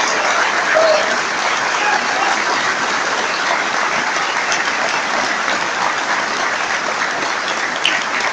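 A large audience applauding, with steady, continuous clapping.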